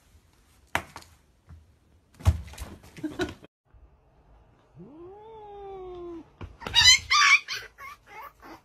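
A few short knocks, then a cat's long meow that rises and slowly falls, followed about half a second later by a louder, harsh burst of yowling.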